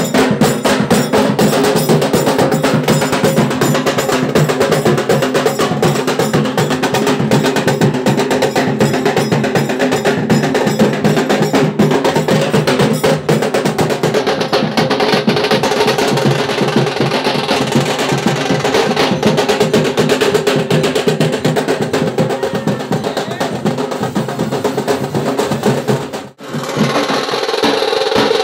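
Procession drum group of dhol, bass drum and snare drums playing a loud, fast, dense beat, with a momentary break about two seconds before the end.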